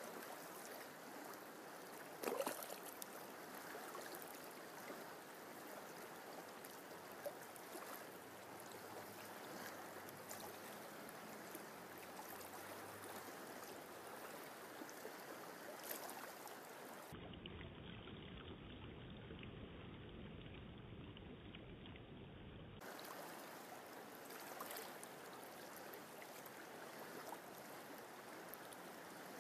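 Running stream water: an even, steady rush with a sharp click about two seconds in. For about six seconds past the middle the sound turns dull and low, its highs cut off, before the full rush returns.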